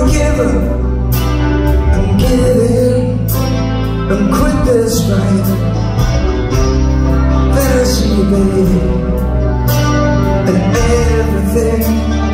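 Music: a song with a voice singing over instruments and held bass notes.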